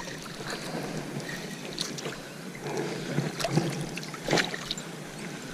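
Water splashing and sloshing as a hooked pike thrashes at the surface and a landing net is pushed through the water, with a few sharp splashes.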